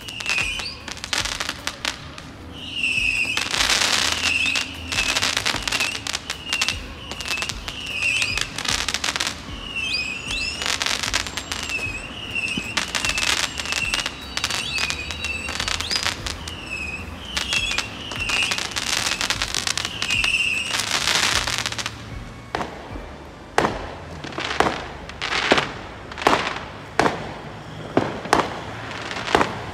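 Fireworks going off: dense crackling bursts and bangs, with short high repeated notes over them for most of the first twenty seconds, then separate sharp bangs about one a second near the end.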